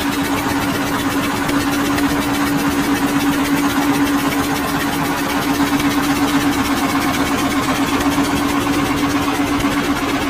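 Motorboat engine running steadily, a constant hum with a fast, even chugging beat, over a wash of water and wind noise.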